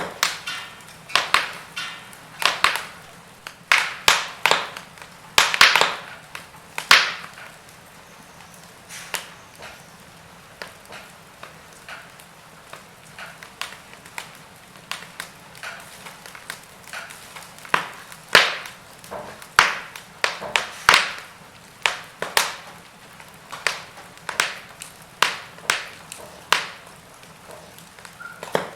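Logs burning in a fireplace, crackling: irregular sharp pops and snaps, some with a brief ring, bunching closer together at times, over a faint steady hiss.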